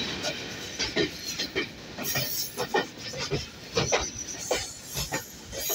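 Train running on the track, its wheels clattering with irregular knocks and clicks over a steady rushing noise.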